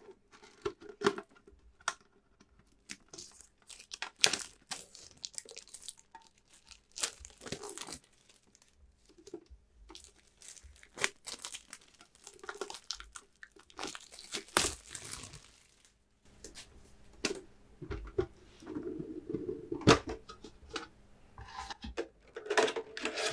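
Plastic shrink wrap being torn and peeled off a Pokémon card tin, crackling and crinkling in irregular bursts with short pauses.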